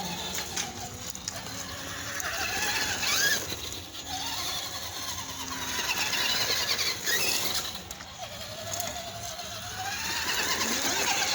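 Traxxas Stampede 4x4 RC truck's electric motor and drivetrain whining, the pitch rising and falling in surges as the throttle is worked.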